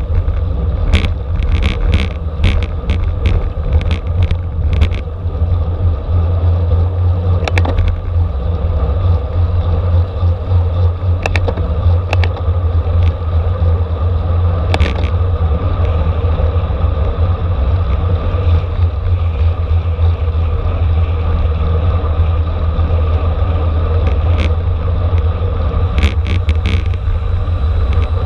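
Road bicycle riding fast in a race: a heavy, steady rumble of wind and road noise, with scattered sharp clicks and rattles.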